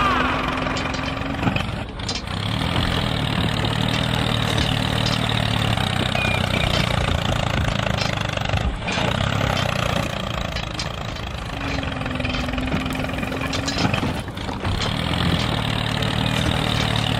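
Tractor engine running steadily with a low chugging note, dropping briefly about every six seconds.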